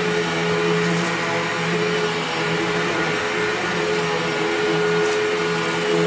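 Hoover WindTunnel Mach 2.1 upright vacuum cleaner running steadily as it is pushed back and forth over a rug, sucking up scattered cat litter and cat food. Its motor gives a steady whine over a loud rush of air.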